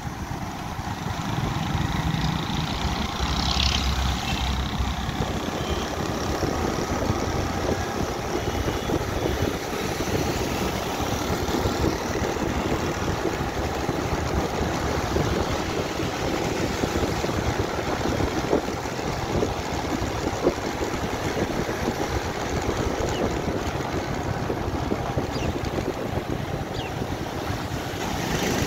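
Road traffic heard from a moving vehicle: a steady rush of wind noise and engine hum, with motorcycles and cars running close by.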